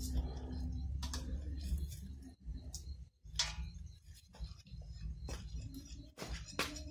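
Knife blade scraping and knocking against a pangasius catfish in a stainless steel bowl as the fish is cleaned: irregular sharp clicks and short scraping strokes, the loudest about three and a half seconds in.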